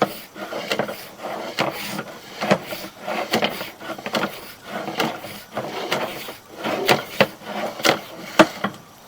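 Irregular knocking, clicking and scraping of a sewer inspection camera being pushed along a drain pipe.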